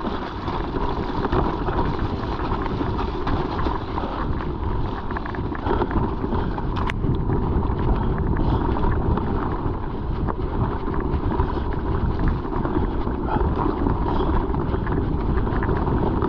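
Wind rushing over the microphone and mountain bike tyres rumbling over rough ground on a fast descent, with frequent small rattles and knocks from the bike and a sharper knock about seven seconds in.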